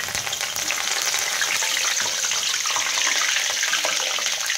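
Fresh curry leaves sizzling in hot oil in a kadai, a steady dense hiss full of fine crackles as they deep-fry toward crisp.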